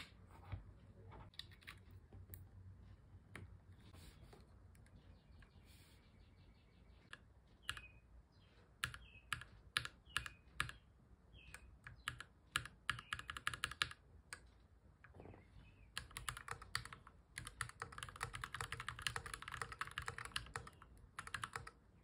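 Keys of a Keychron Q11 aluminium-cased split mechanical keyboard being pressed: a few faint knocks and scattered single keystrokes at first, then sharper separate key presses, and from past the middle fast continuous typing.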